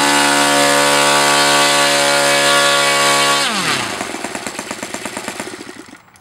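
O.S. 155 FS-a four-stroke glow engine with an APC 17x8 propeller running steadily at full throttle, near its 8,650 rpm peak. About three and a half seconds in it is cut off: the pitch drops quickly, and it winds down in separate, slowing beats to a stop.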